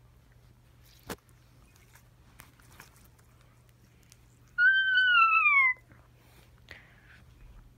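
One loud, high cry lasting about a second, starting a little past the middle, that rises slightly and then falls in pitch. A faint click comes about a second in.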